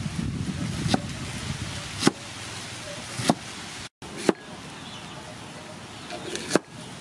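Cleaver chopping through a head of cabbage onto a round wooden chopping block: five sharp knocks, about one a second.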